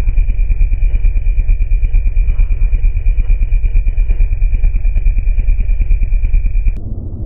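Motorcycle engine sound: a deep, evenly pulsing rumble of about seven pulses a second with a steady high whine over it, cutting off suddenly near the end.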